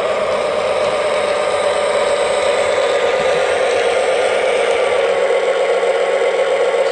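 Lionel Mystery Machine Lion Chief toy diesel locomotive and its cars running forward along the track close by, with a steady rattling whir from the motor, gearing and wheels mixed with the engine's onboard diesel engine sound effects; it grows a little louder as it comes near.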